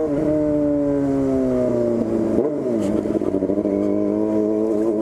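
Yamaha FZ6's inline-four through a straight-through 4-into-1 racing exhaust: revs fall away as the throttle closes, a quick blip about two and a half seconds in, then an uneven crackle before it settles to running steadily at lower revs.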